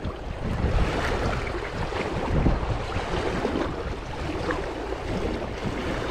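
Flowing creek water with wind buffeting the microphone in an uneven low rumble.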